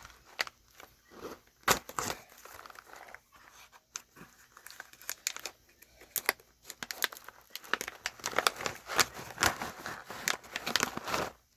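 Packaging crinkling and rustling as items are handled and unwrapped, in irregular crackles that get busier and denser over the last few seconds.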